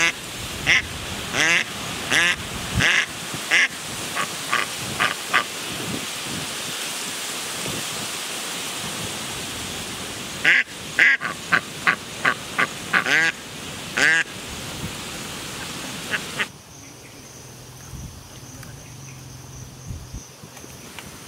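Domestic ducks quacking in short repeated calls, in two bouts with a gap of about five seconds between them. The quacking cuts off suddenly about 16 seconds in, leaving a quieter background with a faint steady high tone.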